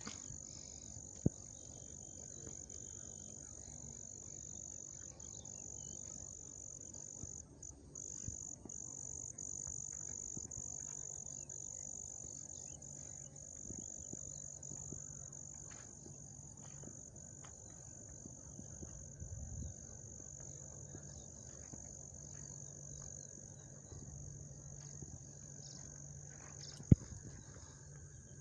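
Steady high-pitched trilling of insects in the field, with a couple of sharp clicks, one about a second in and a louder one near the end.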